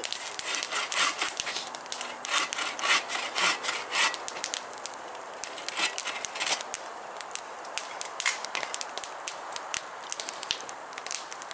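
Hand saw cutting through wood in irregular rasping strokes, busiest in the first few seconds and then sparser.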